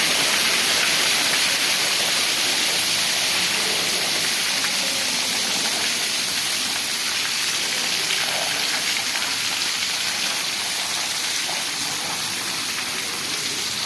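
Water rushing and gushing steadily with a hard hiss, from flushing a screw chiller's water-cooled condenser during descaling, fading slowly and slightly.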